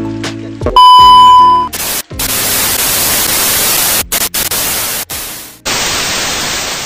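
Analogue TV transition sound effect: the end of a music bed, then a loud steady test-tone beep lasting about a second, followed by TV static hiss that cuts out briefly a few times.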